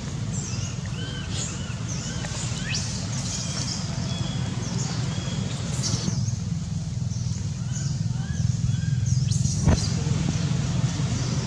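Steady low rumble, like distant traffic, with short high chirping calls scattered over it and a single sharp click near the end.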